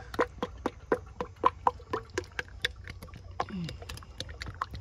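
Motor oil glugging out of a plastic 5-quart jug into a funnel: a quick, irregular run of gulping pops, several a second, as air bubbles back into the jug.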